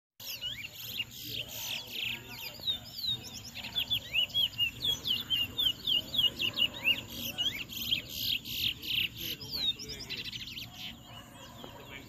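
Towa-towa seed finch song: rapid runs of short whistled chirps that rise and fall, densest and loudest from about four seconds in to near the end, then thinning out.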